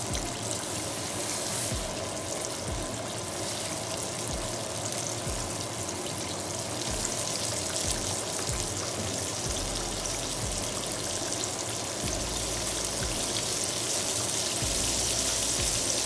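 Breaded chicken fried steak deep-frying in hot oil in a skillet: a steady, crackling sizzle.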